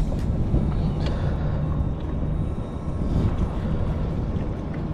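A steady low rumble with no clear strokes or changes.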